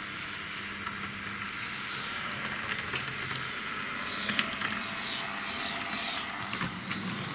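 H0-scale model tram running on metal track: a steady hiss of its small electric motor and wheels, with occasional light clicks from the wheels over rail joints.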